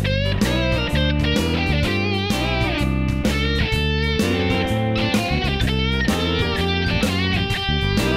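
Background music led by electric guitar over a steady bass beat, with bending lead notes.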